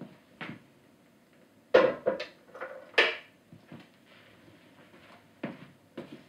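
Wooden kamishibai stage box handled and set down on a glass-topped table: a series of wooden knocks and clunks, the loudest about two and three seconds in.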